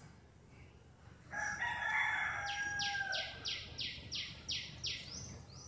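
A rooster crows once, a long drawn-out call, and a small bird calls over it with a quick run of about eight high notes that each fall in pitch.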